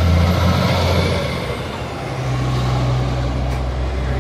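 Semi-trailer truck's diesel engine running as the truck drives past, with tyre and road noise. The engine note drops away about a second in and comes back at a higher pitch about two seconds in.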